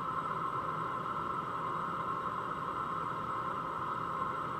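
BougeRV 5 kW diesel heater running steadily on its highest setting: an even rushing noise of fan and burner with a constant whine on top.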